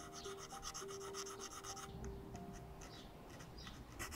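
Faint, rapid short strokes of a small file on a tiny watch potence held in brass tweezers, several strokes a second; they thin out about halfway through and pick up again at the very end. Soft background music runs underneath.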